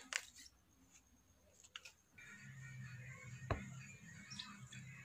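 Faint crinkling clicks of a foil hot cocoa sachet being gripped and lifted, then soft background music with one light tap about three and a half seconds in.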